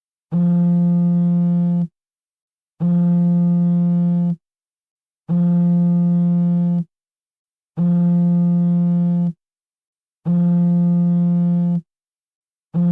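Mobile phone vibration buzzing in a regular pattern: five low, steady buzzes about a second and a half long, each separated by about a second of silence, with a sixth starting near the end.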